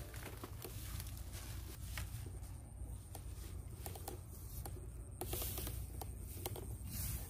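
Rustling and crackling of dry grass and rice stalks brushed and trodden underfoot, with scattered light clicks, over a steady low rumble. The rustling is louder about five seconds in and again near the end.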